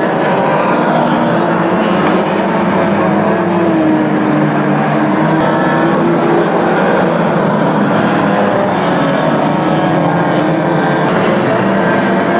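Engines of a pack of banger racing cars running hard together, many engine notes overlapping and rising and falling as the cars accelerate and ease off.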